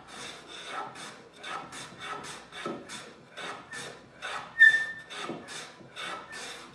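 Hand plane cutting a chamfer across the end grain of a hardwood cutting board: quick short rasping strokes, about three a second. About four and a half seconds in, one brief high-pitched squeak stands out as the loudest sound.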